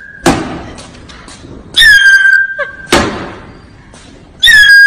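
A plastic whistle blown in shrill blasts about a second long, each dipping slightly in pitch at the start and then holding one steady note. Each blast is cut off by a sharp slap, twice.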